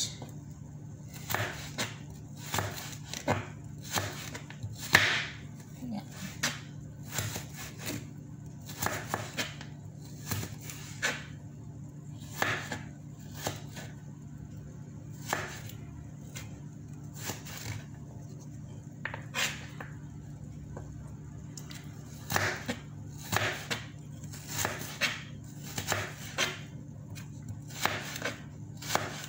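Kitchen knife slicing raw carrots into sticks on a metal board: sharp, irregular knocks of the blade meeting the board, about one or two a second with a couple of short pauses, over a steady low hum. The cook calls the knife rather dull.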